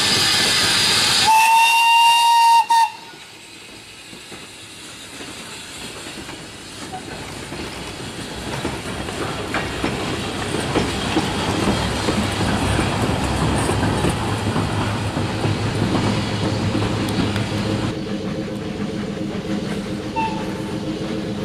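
Small industrial saddle-tank steam locomotive: a loud steam hiss, then one short whistle blast of about a second and a half. After that the locomotive and its wagons run, the sound slowly growing louder, with a brief faint whistle near the end.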